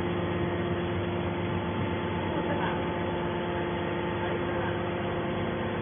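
Hydraulic scrap metal baler's electric motor and hydraulic pump running with a steady hum.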